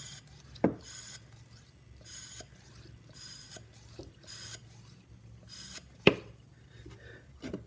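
Plastic syringe on a homemade brake-bleeding vacuum pump being worked in and out, drawing a vacuum to suck brake fluid from the line; each stroke is a short hiss of air through the aquarium check valves, about one a second. A few sharp plastic knocks come in between, one about a second in and two near the end.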